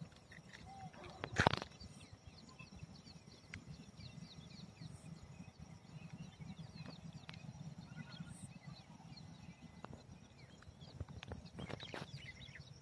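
Outdoor field ambience: many small birds chirping faintly over a low, uneven rumble on the microphone, with one sharp knock about a second and a half in and a few clicks near the end.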